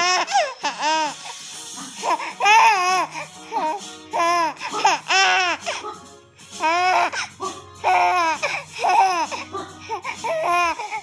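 A seven-month-old baby laughing in repeated high-pitched squeals, a new burst every second or so, with music playing softly underneath.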